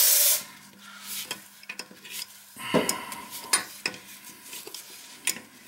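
Pliers clicking and scraping on a long metal toilet closet bolt and its nut at the toilet base, the toilet loose on its flange. A loud hiss at the start cuts off about half a second in.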